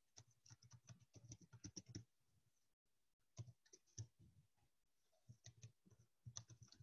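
Faint computer keyboard typing: quick bursts of keystrokes with short pauses between them.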